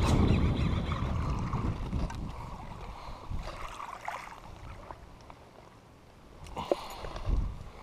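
Low rumbling noise on the camera microphone, strongest at first and easing off, with a sharp click and a soft knock near the end as the camera is moved about.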